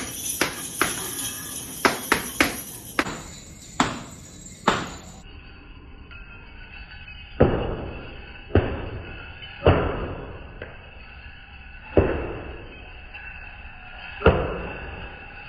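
Flamenco shoes striking a hard floor: a quick run of heel-and-toe taps, then five single heavy stomps a second or two apart, each ringing out in the room.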